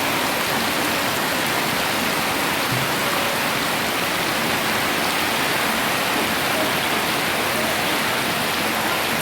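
Heavy tropical-storm rain falling steadily in a dense, unbroken hiss.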